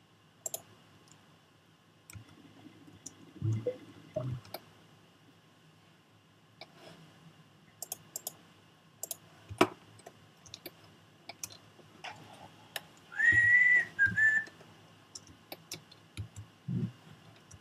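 Scattered clicks of a computer mouse and keyboard during 3D modelling work, with a brief whistle-like tone in two parts about thirteen seconds in.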